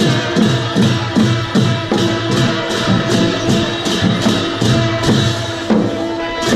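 Traditional Newar dance music played live: drum strokes and clashing cymbals in a steady, quick rhythm, with a held note sounding over them.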